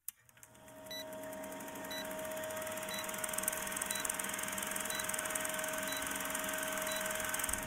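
Film-leader countdown sound effect: a quiet steady projector whir with film crackle, and a short high beep once a second, seven times.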